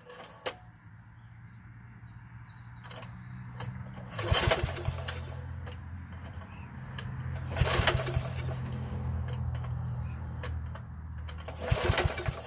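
Recoil starter cord on a walk-behind mower's Briggs & Stratton engine pulled three times in quick rattling strokes, with no start: the starter is not catching, so the engine is not being turned over. A steady low motor hum runs underneath.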